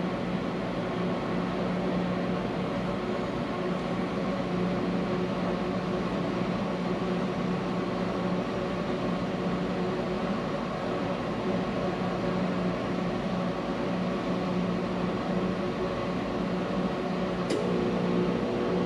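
Midtronics GR8 battery charger and tester humming steadily while it self-tests the battery before charging. About a second before the end there is a click, and the hum grows fuller as the charge kicks on.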